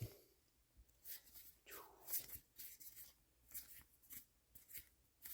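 Faint, soft swishes of trading cards sliding against each other as they are flipped through one at a time, about eight short strokes.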